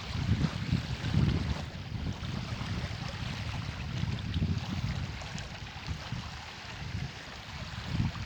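Strong wind buffeting the microphone in uneven gusts, a low rumble rising and falling over a steady rushing hiss.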